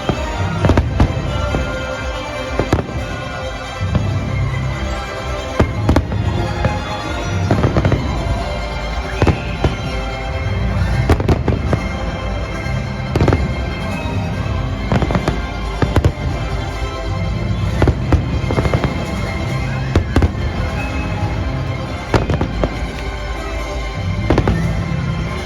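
Fireworks going off in a display: many sharp bangs at irregular intervals, over music playing throughout.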